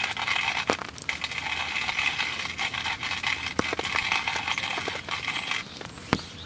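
Hand-cranked coffee grinder being turned, a steady gritty crunching grind with a few clicks, stopping about five and a half seconds in.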